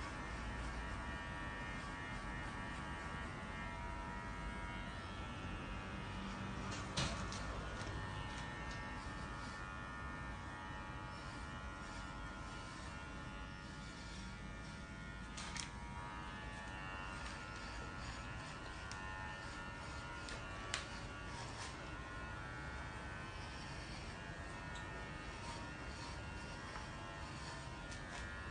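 Electric hair clippers buzzing steadily as they shave a head close to the scalp, with three brief sharp clicks along the way.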